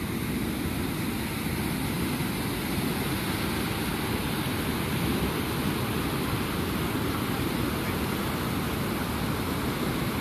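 Fast mountain river rushing over boulders and rapids: a steady, unbroken whitewater noise.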